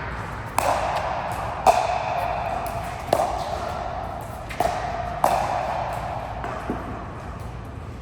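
Ball being struck back and forth in a racket-sport rally: six sharp hits about a second apart, each with a short ringing echo.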